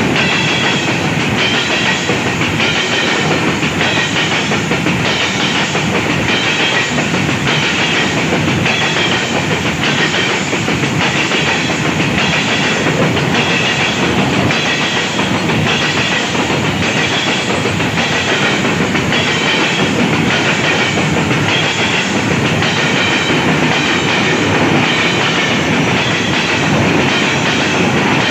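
Freight wagons of a coal train passing close by at about 60 km/h: a loud, steady rumble of steel wheels on rail with an evenly repeating clickety-clack over the rail joints.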